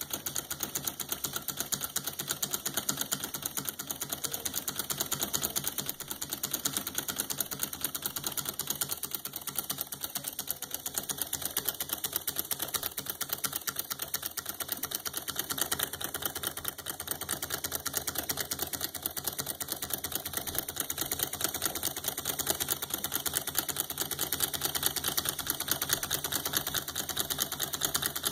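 Homemade Stirling engine built from scrap (jar displacer, half-inch pipe piston and coupling cylinder, wire linkages, CD flywheel) running steadily, its moving parts clicking in a fast, even ticking rhythm.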